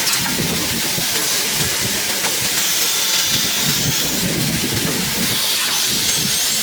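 Nesting CNC router machine running, a steady high hiss with faint rising whines near the end.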